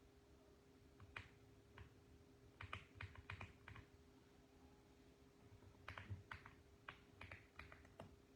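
Mechanical keyboard typing, faint: keystrokes in short, uneven bursts with a pause of about two seconds in the middle. A faint steady hum sits underneath.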